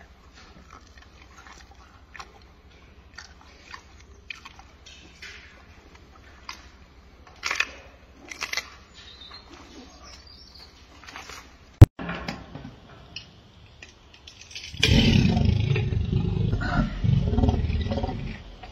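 Gorilla eating a banana: soft wet smacks and chewing clicks, with one sharp loud click about halfway through. Near the end comes a loud, rough, low sound lasting about four seconds.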